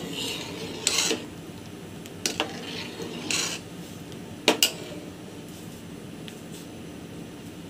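A steel spoon stirring milky sheer khurma in an aluminium pot, clinking and scraping against the pot several times, with the sharpest two knocks close together about four and a half seconds in.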